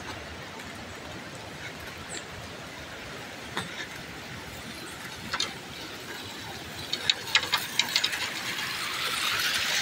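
Footsteps on a gravel track, a few scattered clicks and then a quick run of them about seven seconds in, over a steady outdoor hiss. Near the end the rushing of a small stream grows louder.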